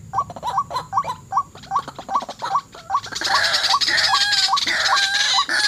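White-breasted waterhens calling: short, hooked croaking notes repeated two to three times a second. About three seconds in, louder overlapping calls with higher rising and falling notes join in.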